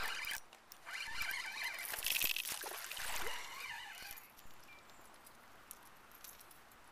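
Small smallmouth bass splashing at the water's surface as it is landed, with water dripping and trickling; the loudest splash comes about two seconds in, and it quietens after about four seconds.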